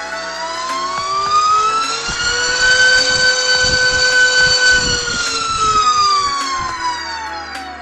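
Diatone TOKA 2207.5 2650KV brushless motor spinning a 5-inch three-blade prop on a thrust stand, through a full throttle ramp. Its whine rises in pitch to full throttle, holds at the top for about two seconds, then falls as the throttle ramps back down.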